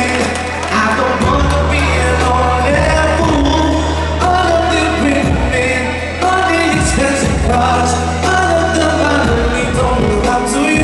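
A man singing a pop song into a microphone, amplified, over instrumental accompaniment with a steady bass line.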